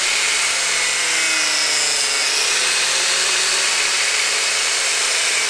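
4-inch angle grinder with a cut-off wheel cutting through braided power steering hose, a loud, steady grinding.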